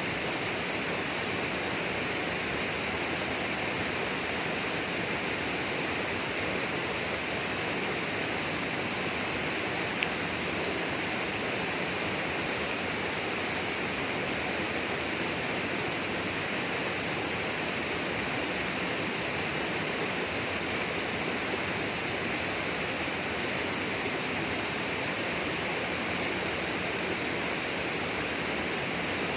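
Steady rushing water of a rainforest stream or waterfall, even and unbroken, with a single brief tick about ten seconds in.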